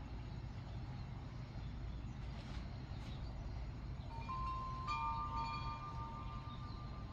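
Steady low rumble throughout. About four seconds in, several clear chime tones start one after another and keep ringing.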